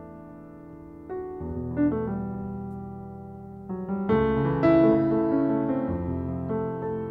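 Background piano music: slow chords that ring out and fade, growing fuller and louder about four seconds in.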